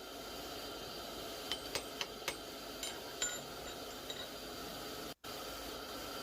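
A few light metallic clinks, about six spread over a couple of seconds, over a steady background hiss: steel hand tools and a forged gouge being handled. The sound cuts out for an instant about five seconds in.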